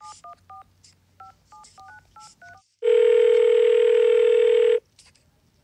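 A touch-tone telephone number being dialed: about ten short keypad beeps, each a pair of pitches, in quick groups. Then a ringback tone, a steady buzzing tone lasting about two seconds, which signals that the call is ringing through.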